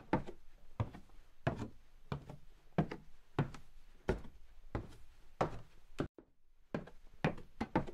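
A steady series of dull knocks at an even walking pace, about three every two seconds, with a brief pause about six seconds in.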